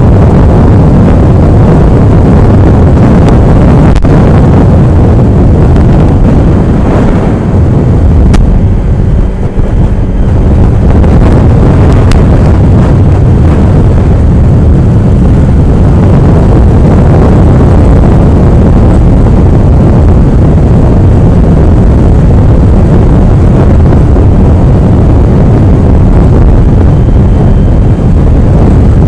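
Strong wind buffeting the microphone, a loud, constant roar heaviest in the low end, easing briefly about nine seconds in.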